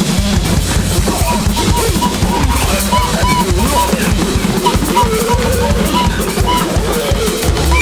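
Free-improvised noise music: an electronic drum kit played fast and busy with bass drum and snare hits, under short, repeated high synth blips and wavering, bending tones.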